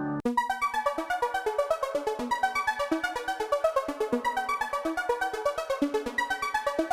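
Background music: a synthesizer playing quick, evenly repeated keyboard-like notes, about six or seven a second.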